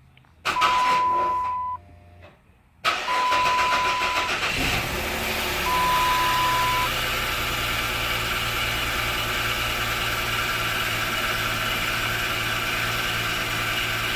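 2006 Dodge Charger being started: the starter cranks briefly and stops, then cranks again and the engine catches a few seconds in and settles into a steady idle, now that its fuel pump, shut-off relay and key transponder fob are sorted. Three short dashboard chime beeps sound over it.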